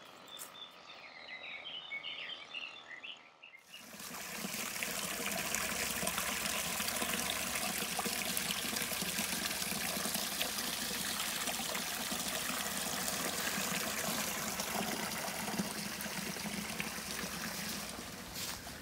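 Faint chirping for the first few seconds, then a small stream of water trickling and splashing down over rocks, starting abruptly and running steadily.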